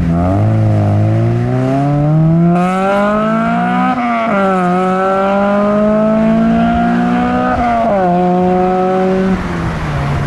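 Modified car accelerating away, its engine note climbing steadily, then dropping sharply about four seconds in and again about eight seconds in as it shifts up through the gears. The engine note falls away near the end.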